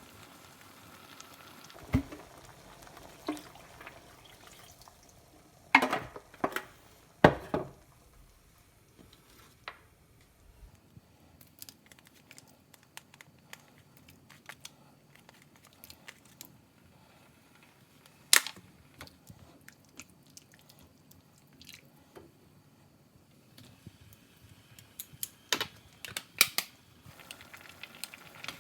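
Kitchen handling sounds while cooking: scattered sharp knocks and clinks of utensils and dishware, with quiet stretches between. The loudest cluster comes about six to seven seconds in, with another single knock around eighteen seconds and a run of clicks near the end.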